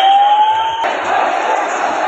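Large street crowd shouting and cheering, with one long rising call sweeping up in pitch over it that cuts off abruptly just under a second in.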